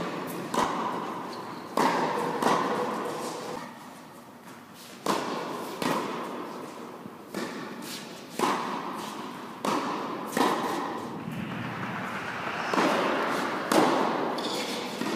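Tennis rally on an indoor court: racket strokes on the ball and ball bounces, a sharp hit every second or so, each followed by the ringing echo of the large hall.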